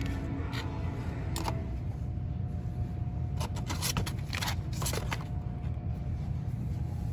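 Plastic baby-food pouches crinkling and knocking against cardboard display trays as a hand sorts through them. A run of short crackles, thickest midway, over a steady low rumble.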